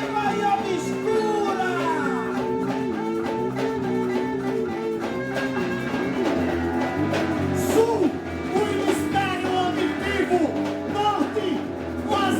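Live instrumental music: a guitar playing wavering, bending notes over percussion.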